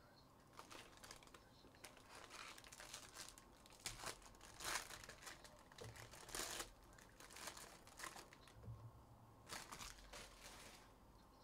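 Trading-card pack wrappers crinkling and tearing as packs are opened by hand, in a run of short, irregular rustles that are loudest about halfway through.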